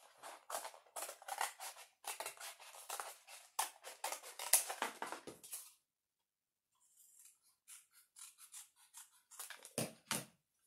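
Scissors cutting thin green cardboard from a cracker box, a quick run of short snips that pauses about six seconds in and resumes more faintly. A couple of low knocks come near the end.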